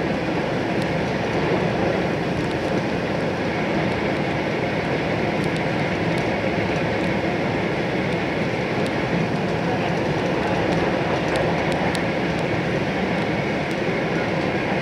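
Steady running noise inside the upper-deck cabin of an E4 Series Max Shinkansen motor car as the train runs through a station at speed: an even rumble and rush with a few faint high clicks.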